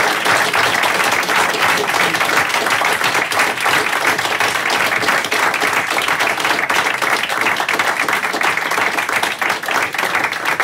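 A small audience applauding, a dense patter of hand claps that begins to thin out into separate claps near the end.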